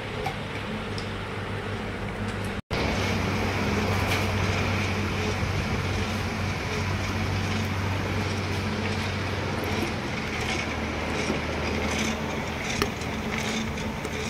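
Steady electric motor hum with an even hiss, from a paint colorant tinting machine running. It breaks off in a brief gap about three seconds in and comes back a little louder, with a few light clicks near the end.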